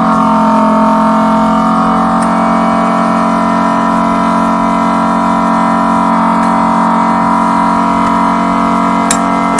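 Vacuum pump of an LCD screen separator running with a loud, steady hum, holding the phone screen down on the heated plate while the glass is cut off. A few faint clicks come over it, the sharpest near the end.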